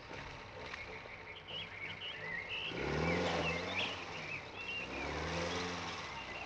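Engine of a vintage open two-seater sports car approaching. It swells in two goes, rising and falling in pitch, while birds chirp in the first half.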